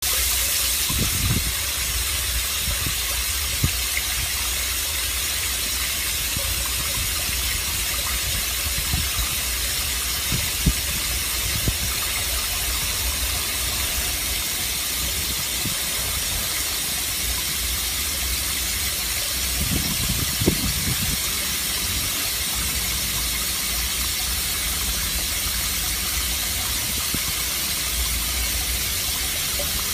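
Water jetting from a two-stage float valve inlet and spraying into a water tower tank with the valve fully open: a steady loud hiss over a low rumble, with a few soft knocks.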